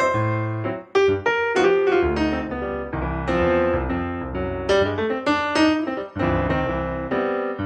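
Background piano music: a steady run of single struck notes with a lighter bass line.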